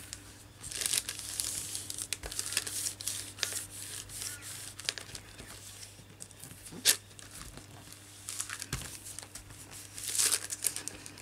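Hands rubbing and pressing down over thin paper on a laminating sheet: a dry paper rustle and crinkle that comes and goes in spells, with one sharp tap about seven seconds in.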